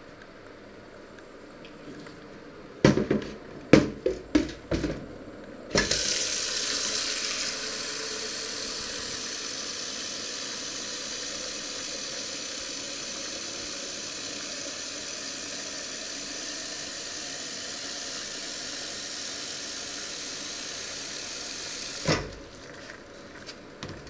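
A few sharp knocks and clatters, then a kitchen tap running into a plastic measuring jug in a stainless-steel sink for about sixteen seconds. The flow stops abruptly near the end with a knock, followed by a few light knocks.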